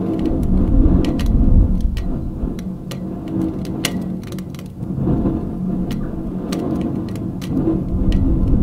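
Live-mixed electroacoustic sound art: a dense low rumble with a few steady hum tones underneath and scattered sharp clicks, swelling and dipping in level.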